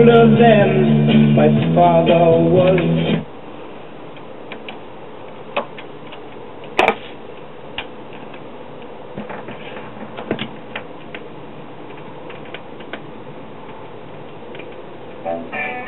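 A record playing through the console stereo's speakers, music with singing, stops abruptly about three seconds in. A quiet stretch of hiss follows with scattered mechanical clicks from the Collaro Micromatic record changer cycling, the sharpest clack about seven seconds in. Near the end, guitar music starts as the next record plays.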